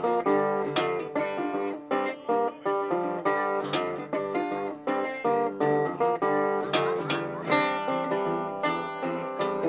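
Metal-bodied resonator guitar fingerpicked with a slide in an instrumental passage: a steady rhythm of picked notes with a bright, metallic ring.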